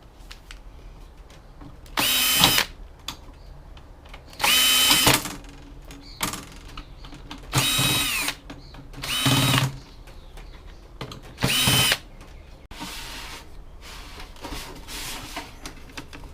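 Cordless drill-driver run in five short bursts, each spinning up and winding down, as screws are driven out to free a card from the unit's chassis, with quieter handling between bursts.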